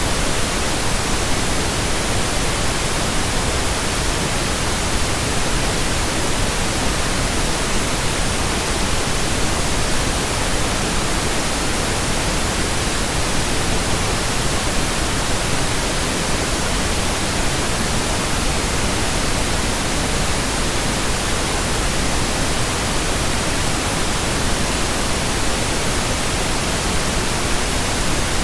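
Steady pink noise: an even, unbroken hiss across the whole range, with no tones or changes.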